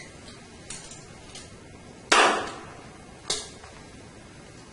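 Staple gun firing staples to fasten pool table cloth: two sharp clacks about a second apart, the first much louder, with a couple of faint taps before them.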